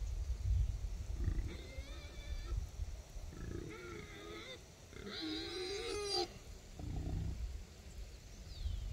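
Domestic geese calling: three drawn-out, wavering honks about two seconds apart, the last one loudest, over a low rumble.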